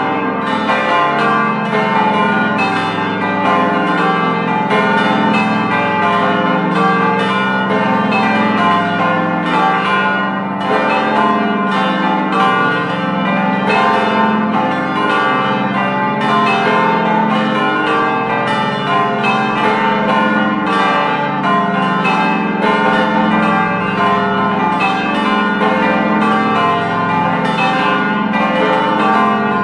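The eight church bells of a bell gate, weighing from 220 kg to 2800 kg, ringing together as a peal. Many overlapping strikes at different pitches over a deep hum, steady and unbroken.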